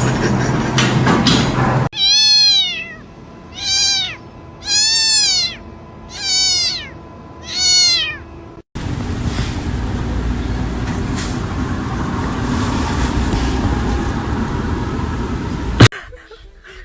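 A cat meowing five times, about once every second and a half, each call rising and then falling in pitch. Noise with no clear pitch comes before and after the meows, and a single sharp click comes near the end.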